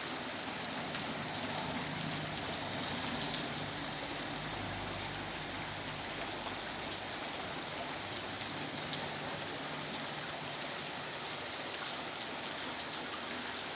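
Heavy tropical-storm rain falling steadily, an even hiss of downpour, with a faint low hum underneath.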